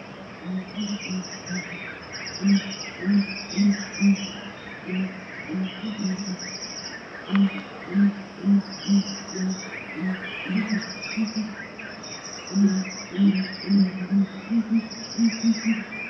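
Outdoor nature ambience: birds chirping and calling, and insects trilling in short repeated bursts. Under them, a low sound pulses over and over in short groups and is the loudest thing heard.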